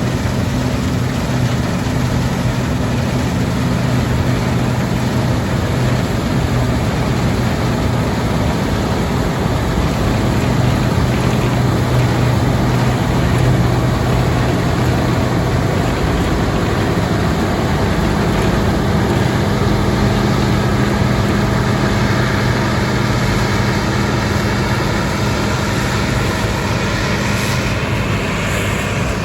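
Heavy diesel harvest machinery running steadily at work in a barley field. The low engine note shifts a little past halfway, and a higher whine builds up toward the end.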